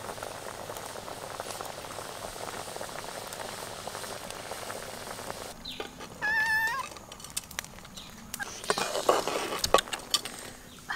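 Water boiling hard in a pan of quail eggs over a wood fire, a steady bubbling for the first half. About six seconds in comes a short, wavering high call, and near the end a flurry of knocks and rustling.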